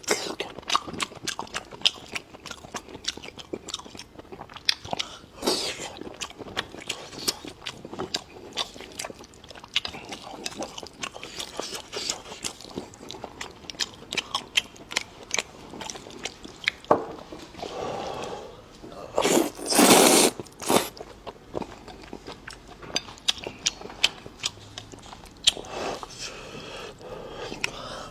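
Close-miked eating: steady chewing and crunching mouth sounds with irregular wet clicks, and a louder rush of noise about twenty seconds in.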